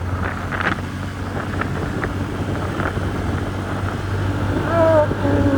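TVS Ntorq 125 scooter's single-cylinder engine running steadily under way, with a low hum and small rattles. Near the end a person's voice starts up.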